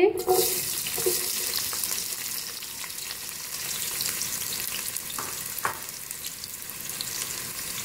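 Sliced onions sizzling in hot cooking oil in a pot, a steady hiss that starts suddenly as they hit the oil. Two brief clicks a little past the middle.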